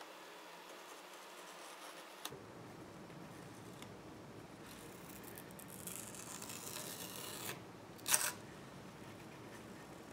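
Faint scraping and rubbing as a pointed hobby blade trims masking tape and fingers press the tape down onto a model deck, with one brief sharp rasp about eight seconds in.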